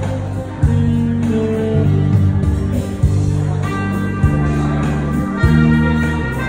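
Live electronic keyboard music played on a multi-keyboard synthesizer rig: sustained low bass notes that change about once a second under held chords. A higher melody line comes in about halfway through.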